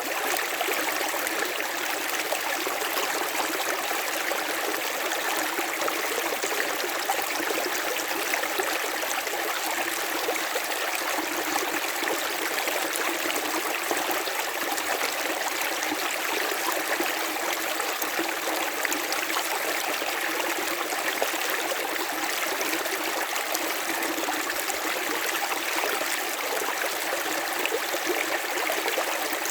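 A river's water running over its bed: a steady, even rushing with no breaks, with hardly any low rumble.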